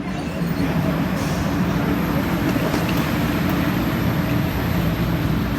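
Airliner cabin noise from inside an Airbus A321: a steady roar of engines and airflow with a low hum, growing a little louder about half a second in.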